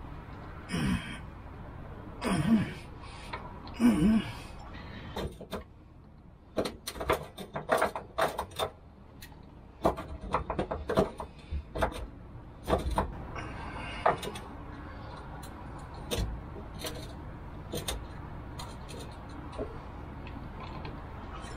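A man grunts with effort three times, then a run of irregular clicks and light knocks as he twists the van's original rubber rear bump stop by hand against the frame, trying to work it loose.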